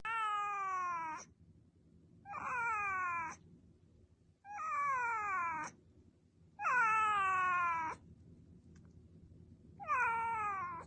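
Domestic cat meowing five times. Each meow is a drawn-out call of about a second that slides down in pitch, with short pauses between them and a longer pause before the last.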